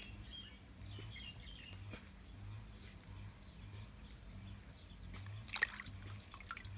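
Small fish being scraped with a machete over a metal bowl of water: faint dripping and trickling, with one sharp clatter and splash about five and a half seconds in as a fish goes into the bowl.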